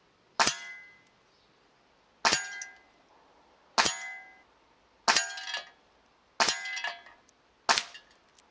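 About six .22 air-rifle pellets striking a paper target in a metal pellet-trap holder, one every one to two seconds. Each hit is a sharp metallic clang that rings briefly.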